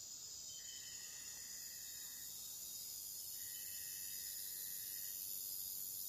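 Insects buzzing steadily at a high pitch. A lower buzzing note joins three times, each lasting about a second and a half.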